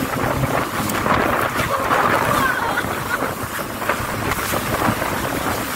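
Jet ski under way across choppy sea: wind rushing over the microphone and water spray, with the engine running underneath.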